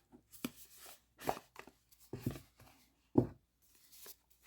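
Hands working a tight cardboard tarot-card box open: a few short knocks and cardboard scrapes, with the sharpest knock about three seconds in.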